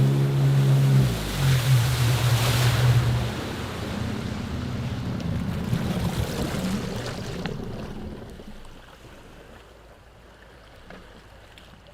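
Jet ski engine running over water, with a steady engine note and spray hiss, loudest around two to three seconds in. The engine note drops away after about three seconds, and the sound fades out over the last few seconds.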